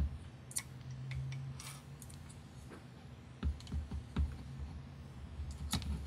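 Light, scattered clicks and taps of small drone parts being handled: a brushless motor and its wires pressed and turned against a carbon-fibre quadcopter frame arm.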